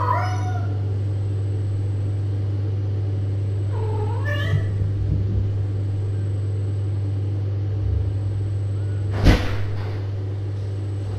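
A cat meows twice, once right at the start and again about four seconds in, over a steady low hum. A single sharp knock about nine seconds in is the loudest sound.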